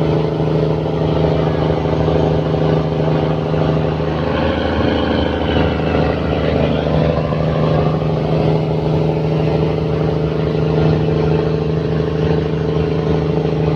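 Fishing boat's engine running steadily at constant speed, an unbroken low drone.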